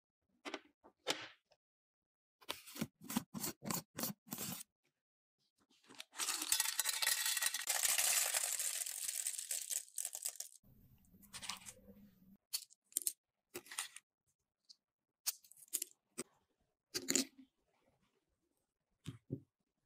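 In-shell pistachios poured into a ceramic dish, clattering for about four seconds, the loudest sound here. Before it comes a run of light knocks and clicks, and after it scattered small clicks as the nuts are handled.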